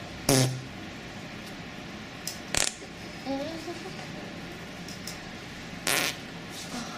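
A few short farts: a brief low buzzing one just after the start, then short puffs with a sharp click at about two and a half seconds, and another noisy burst near six seconds. A faint pitched moan comes at about three seconds.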